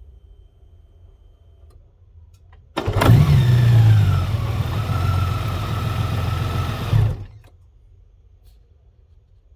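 A 2021 Honda Gold Wing's flat-six engine starting with a sudden loud catch and a quick rise in revs, settling to a steady idle, then switched off about four seconds later. This is the start-up in which the owner hears a clunky noise.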